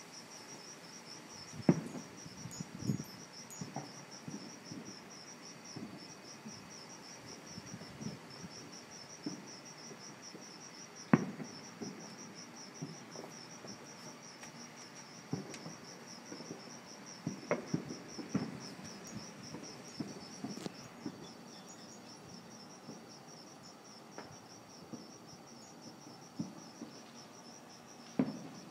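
A cricket chirping steadily in a high, even pulsing rhythm, with scattered distant fireworks going off as bangs and pops. Two bangs stand out as the loudest, about two seconds in and about eleven seconds in.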